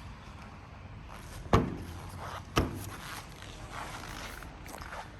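Two sharp knocks about a second apart over a low, steady background.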